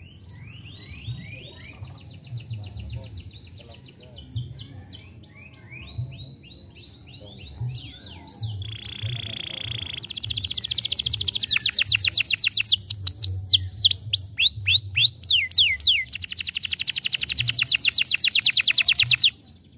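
Canary singing: a run of soft, falling chirps, then a steady held whistle, then loud, very rapid trills and rolls. The song cuts off suddenly near the end.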